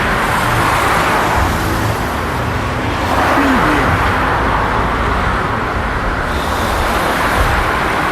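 City road traffic: a steady wash of car and truck engines and tyre noise, swelling louder as vehicles pass near the start and again about three seconds in.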